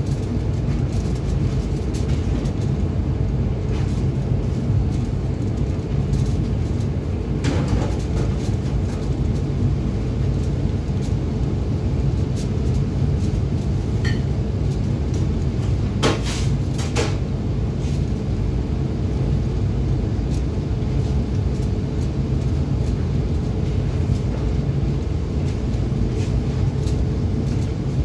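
Commercial kitchen extractor hood fan running with a steady low rumble, with a few sharp knocks of utensils or pans, two of them close together just past halfway.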